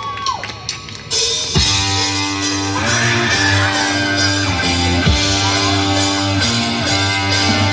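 Rock music with drum kit, guitar and bass starting about a second in: the instrumental intro of a song before the singer comes in.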